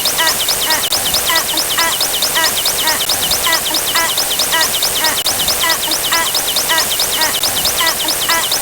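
Synthesized counting sound effect: rapid, evenly repeating short high electronic chirps, about five a second, over a steady static hiss.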